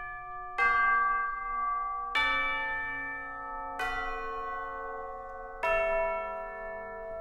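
Bell chimes struck one note at a time, about every one and a half seconds, on changing pitches. Each strike rings on and overlaps the next.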